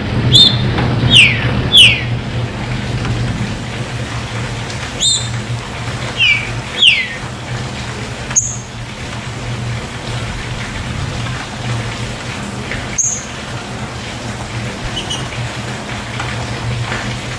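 Green-winged saltator (trinca-ferro) singing two short phrases of loud whistled notes that slide downward, then giving a couple of single sharp high notes. Running water splashes steadily underneath.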